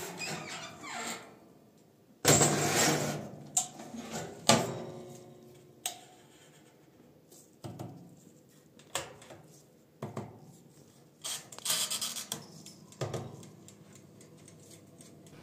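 A metal baking tray scraping and clattering onto the rack of a countertop electric oven and the oven door shutting, followed by a scattering of sharp clicks as its temperature and timer knobs are turned.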